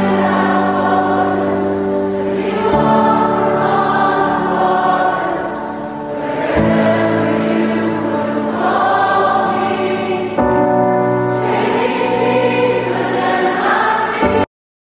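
Background music: a choir singing a slow, hymn-like piece over sustained chords that change about every four seconds. It cuts off suddenly near the end.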